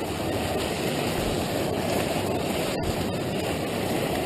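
Steady rushing noise, even in level, with no distinct events.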